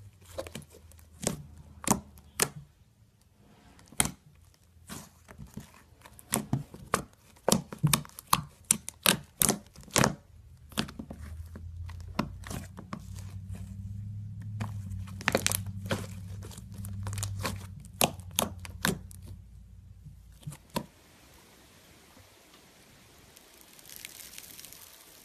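Thick white slime being pressed and folded by hand, giving a fast, irregular series of sharp pops and clicks as trapped air pockets burst. About twenty seconds in the popping stops, leaving only a faint crackle as green foam-bead slime is stretched.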